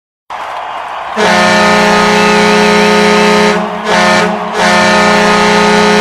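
Hockey goal horn for the Tulsa Oilers blasting one loud, steady, low tone after a short rush of noise, signalling a goal. The blast cuts out briefly twice about halfway through, then carries on.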